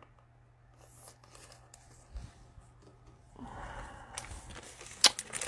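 Trading cards being handled and sorted: soft rustling and ticks of card stock, growing busier about three and a half seconds in, with one sharp click near the end.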